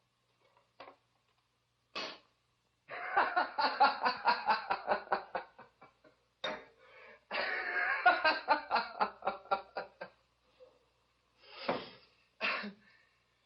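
A man laughing in two long bouts of rapid, pulsing 'ha-ha' laughter, with a couple of short breathy sounds near the end.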